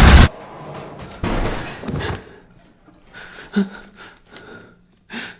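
Film-trailer sound effects: a loud rush of sound cuts off abruptly, followed by a few scattered thuds and knocks in the quiet.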